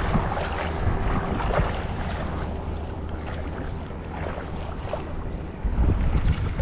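Wind buffeting the microphone over water lapping and splashing, with scattered small clicks and a faint steady hum that fades out about five and a half seconds in; a louder gust of wind comes near the end.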